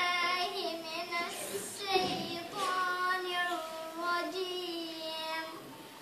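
A girl's solo voice singing in two long melodic phrases of slow, held, wavering notes.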